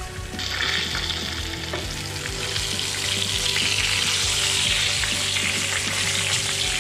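Floured whole brown trout sizzling in hot oil in a frying pan. The sizzle starts about half a second in and gets louder a few seconds later as the fish are turned with tongs.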